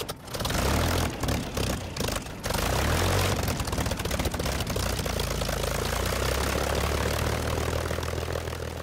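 Propeller aircraft engine running, a steady low drone under a dense rush of noise; it is uneven and stuttering for the first two and a half seconds, then settles into an even run.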